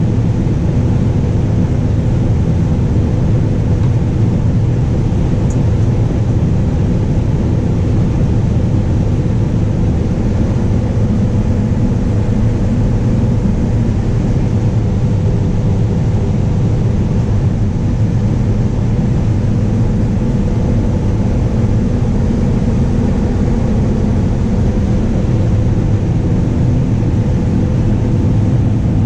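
John Deere combine harvester running steadily under load while combining standing wheat, a continuous deep machine noise with an even hum.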